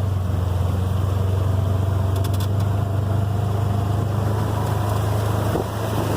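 Side-by-side UTV engine running at a steady speed, a low even drone that eases off shortly before the end.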